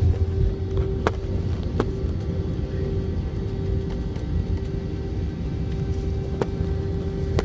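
Airliner cabin noise on the ground before takeoff: a steady low rumble with a steady engine hum over it, and a few faint clicks.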